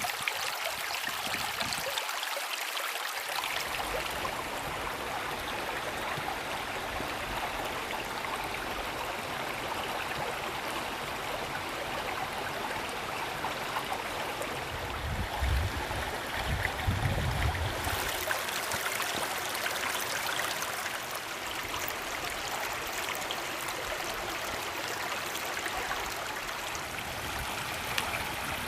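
Steady rushing of flowing water, like a small mountain stream, with a few low thuds about halfway through.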